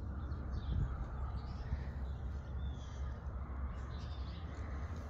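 Steady low wind rumble on the microphone with a few faint, distant bird calls.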